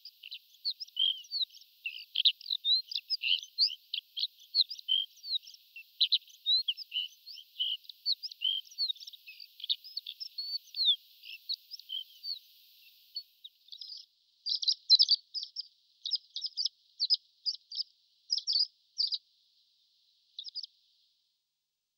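Horned lark singing: a fast run of short, high chirps and slurred notes. About two-thirds in it changes to sparser, sharper clusters of notes, which stop a little before the end.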